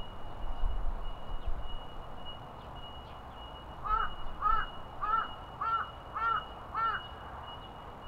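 A crow cawing six times in an even series, about two caws a second, starting about halfway in. A low rumble is heard in the first second or so.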